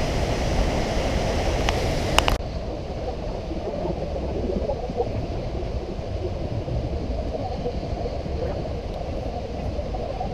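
Steady rushing of water from Vernal Fall and the Merced River, a dense low noise with no distinct events. About two seconds in there are a couple of faint clicks, and the sound turns duller and a little quieter.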